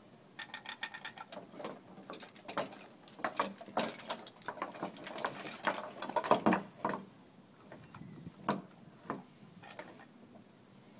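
Wooden marionette dog clattering on wooden deck boards: its wooden feet and jointed legs knock and click in an irregular patter, loudest about two-thirds of the way through.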